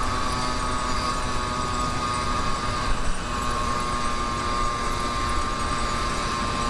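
YD100 two-stroke motorized-bicycle engine running under way with a steady, high-pitched drone. The drone dips briefly about three seconds in, then picks up again.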